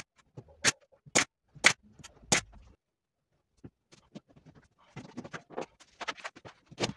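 Pneumatic nail gun firing five quick, sharp shots about half a second apart, driving nails into the wooden frame. Softer knocks and rustling of wooden battens being handled follow later on.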